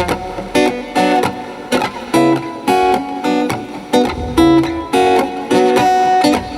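Acoustic guitar strumming a rhythmic chordal introduction to a song.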